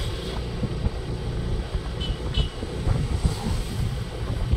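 Gusty wind rumbling on the microphone over road and traffic noise from a moving vehicle, with two short, faint high beeps about two seconds in.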